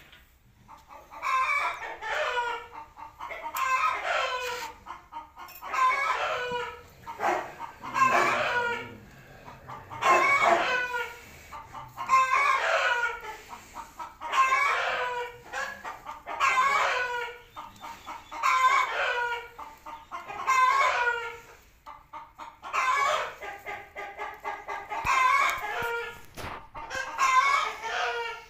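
Roosters crowing over and over, a crow about every two seconds.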